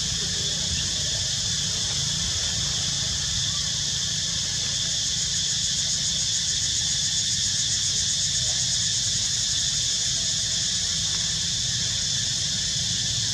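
Dense insect chorus from the forest: a steady high-pitched buzz with a faint fast pulsing in the middle, over a low steady rumble.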